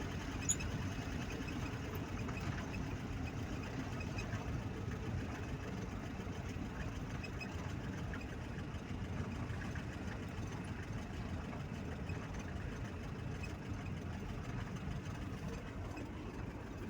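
An engine running steadily with a low, even drone, and a single brief click about half a second in.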